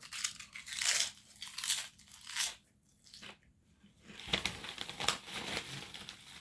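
A person biting and chewing crunchy food: several loud crunching bites in the first couple of seconds, a short pause, then steadier chewing from about four seconds in.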